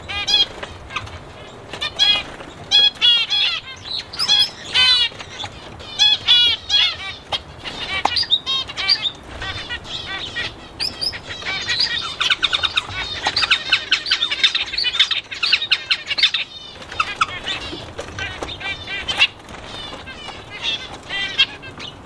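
Mixed aviary of small cage birds chirping and calling over one another in many short, rapid notes, with a dense stretch of fast chattering a little past the middle.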